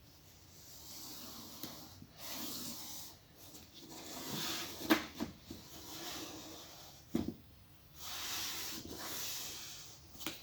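A thin tool scraping and rubbing along the adhesive strip that holds the iMac's glass display to the frame, in several drawn-out passes, with a couple of sharp clicks about five and seven seconds in. The glue is still stiff and is being cut loose.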